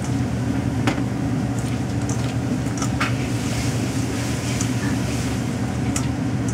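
A steady low hum with an even rushing noise under it, and a few light clicks about one, three and six seconds in.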